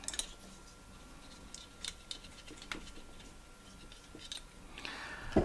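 Faint, scattered light ticks and scratchy rustles of fly-tying thread being wrapped around a hook with a bobbin holder.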